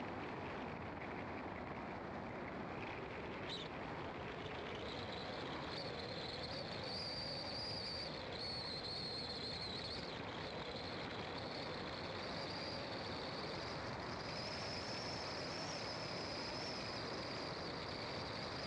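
Car driving at steady speed: continuous engine and tyre noise. A high, shrill whine comes in about five seconds in and holds above it.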